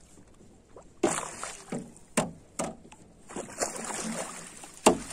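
A hooked curimbatá thrashing at the surface beside the boat, irregular splashes starting about a second in as the landing net goes under it, with one sharp knock near the end.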